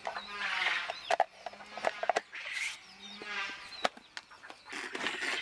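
Chickens clucking, with a few sharp clicks about a second or two in and a denser rattling noise starting near the end.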